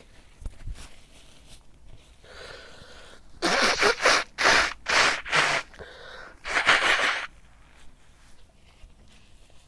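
A man sneezing in a fit: a breathy intake of breath, then a quick run of about five loud sneezes, and one longer sneeze a second later.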